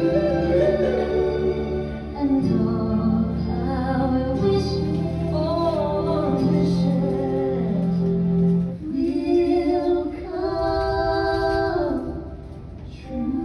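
Music with singing, the voice holding long notes that change every second or so; it drops quieter shortly before the end.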